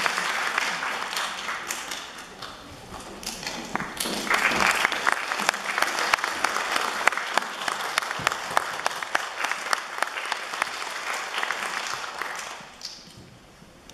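Concert-hall audience applauding, thinning for a moment about two seconds in, picking up again, then dying away near the end.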